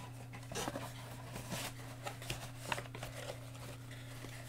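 Faint rustling and a few light clicks of trading cards in plastic holders being handled, over a steady low hum.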